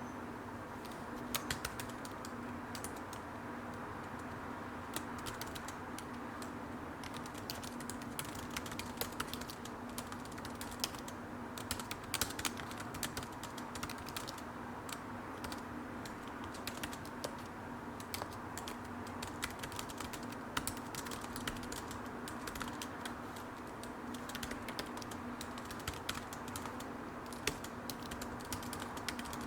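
Computer keyboard being typed on continuously: a dense, irregular patter of key clicks, with occasional louder keystrokes, over a steady low hum.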